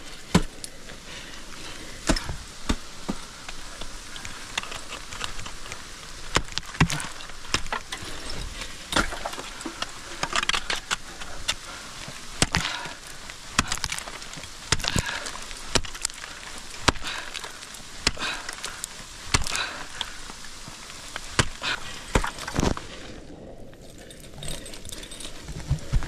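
Ice axe picks and crampon points striking a frozen waterfall during ice climbing: a long run of sharp, irregular chopping strikes into the ice, several loud ones every second or two.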